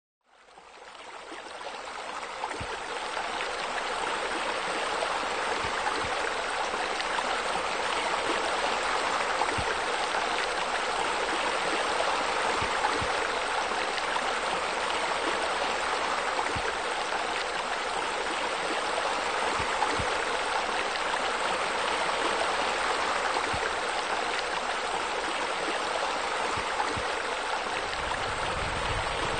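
Steady rushing and splashing of running water, like a waterfall spilling into a pool, fading in from silence over the first few seconds.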